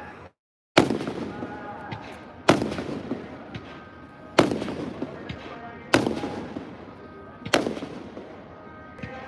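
Aerial fireworks shells bursting overhead: five loud booms about one and a half to two seconds apart, each dying away over a second or so. The sound drops out completely for about half a second just after the start.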